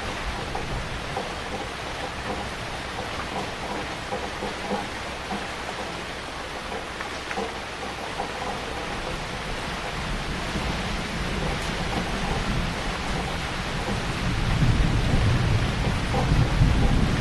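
Heavy rain falling steadily, with a low rumble of thunder building in the second half and loudest near the end.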